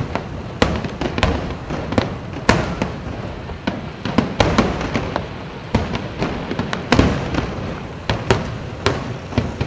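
Fireworks display: a quick, irregular series of sharp bangs and pops, several each second, over a continuous low rumble.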